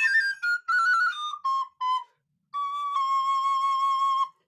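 Recorder playing a quick run of short notes that step downward, a brief pause, then one long held final note.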